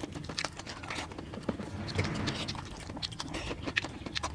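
Close-up eating sounds: chewing and many quick wet mouth clicks, with crunching bites of raw cucumber and fingers mixing rice and curry gravy on steel plates.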